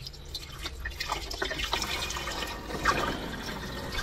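Water poured from a large plastic graduated cylinder into a funnel, splashing and gurgling as it fills the cooling-water reservoir of a CO2 laser cutter. The pouring builds about a second in, with one louder splash near the end.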